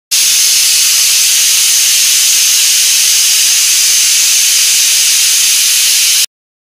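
Aluminium stovetop pressure cooker whistling: a loud, steady hiss of steam escaping past the weight valve, the sign that the cooker has reached full pressure, with the whistles counted to time the cooking. It starts and cuts off suddenly.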